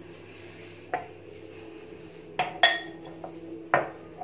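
Glassware clinking as it is handled on a hard counter: a few sharp clinks with a short ring, two of them close together just past halfway. A faint steady hum runs underneath.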